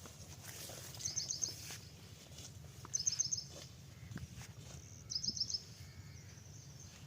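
A bird calling three times, about two seconds apart, each call a quick run of four or five high chirps, over a low steady background rumble.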